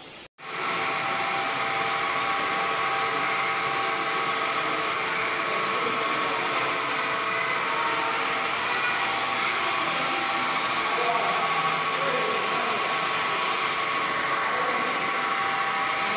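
Motor-driven solar charkha (spinning machine) running, a steady mechanical whir with several constant hum tones from its motor and spindles. It starts abruptly a moment in and holds at one level.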